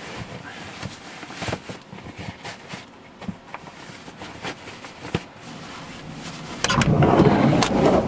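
Laces being pulled and tightened through the metal hooks of Sorel Caribou snow boots: soft scrapes and light ticks. About seven seconds in, a loud rush of blizzard wind buffeting the microphone suddenly takes over.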